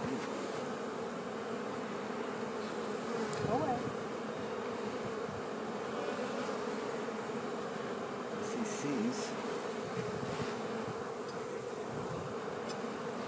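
A colony of honey bees buzzing around an opened hive during a frame inspection: a steady, even hum of many bees.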